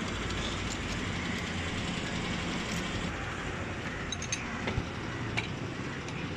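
Steady background engine rumble, with a few light clicks about four to five seconds in.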